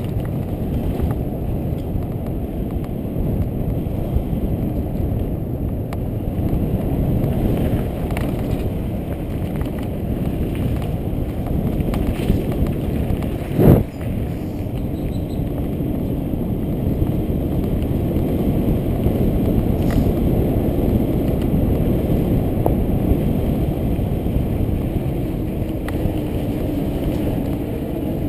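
Mountain bike descending a dirt trail at speed, heard from a helmet-mounted camera: a steady low rumble of wind on the microphone and tyres rolling over dirt, with one sharp loud knock about halfway through.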